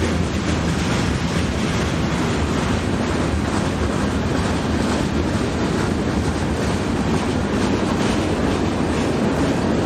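Union Pacific freight train rolling past, a steady rumble of cars and wheels on the rails that holds an even loudness throughout.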